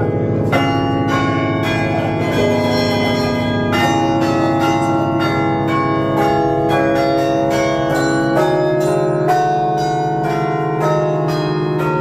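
The 47-bell carillon of St Mary's Lowe House Church playing a melody. Several bells are struck each second, their tones ringing on and overlapping above deep, long-sounding bass bells.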